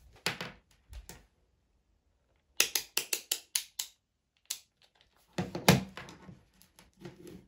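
Rotary range selector of a small handheld digital multimeter clicking through its detent positions, about eight quick clicks in a row, then a single click. Knocks and rustling follow as the meter and its test leads are handled on a wooden tabletop.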